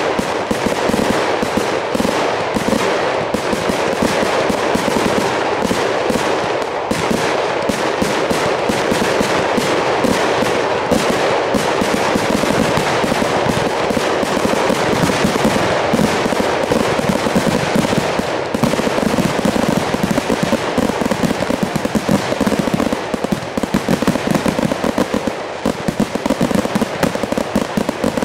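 Fireworks barrage: aerial shells firing from mortar tubes and bursting overhead in a dense, unbroken string of bangs, many a second, thinning into more separate reports near the end.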